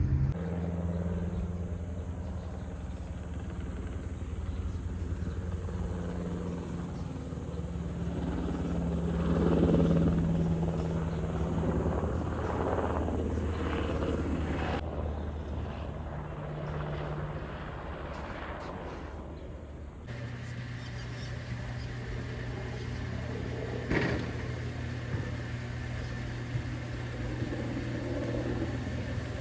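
A heavy engine running with a steady low hum. The sound swells in the middle, then changes abruptly about twenty seconds in and carries on steadily.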